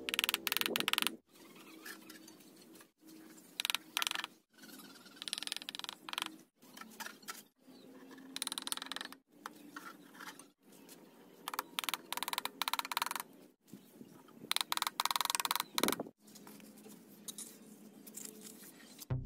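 Brick-laying sounds: the wooden handle of a hammer tapping bricks down into wet cement mortar, and a steel trowel scraping mortar, in short bursts with abrupt breaks between them.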